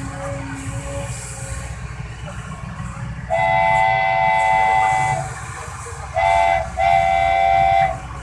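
A multi-tone horn sounds three times: one long blast about three seconds in, then a short one and a longer one, each a steady chord. Underneath runs a steady low engine rumble.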